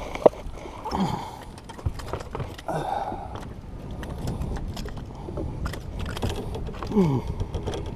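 A freshly landed speckled trout flopping on a boat deck: a run of quick taps and knocks, thickest in the second half, after one sharp knock about a quarter second in.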